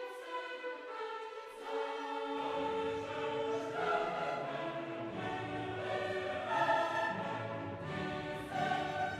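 Background choral music with orchestra, voices holding long notes; deeper parts come in a little over two seconds in.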